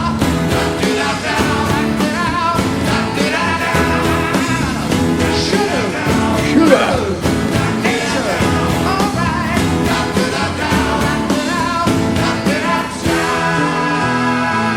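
Live rock band music with singing, guitar and drums; near the end it changes to long held chords.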